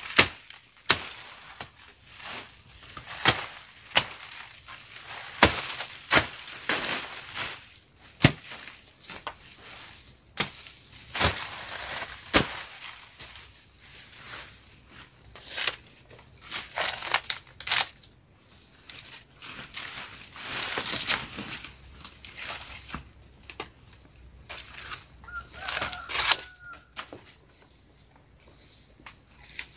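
Machete slashing through undergrowth: irregular sharp chops, roughly one every second or two, some with a brief swish. A steady high insect drone runs beneath.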